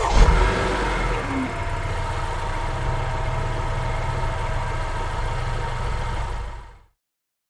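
An engine running steadily, cutting in suddenly and fading out near the end.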